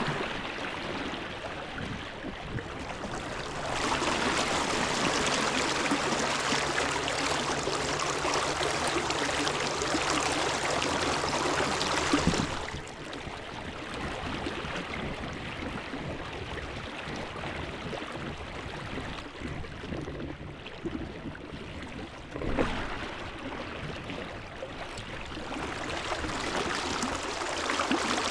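River water rushing steadily, a constant hiss of flowing current. It swells louder for several seconds early on, with a faint low hum underneath, then settles back.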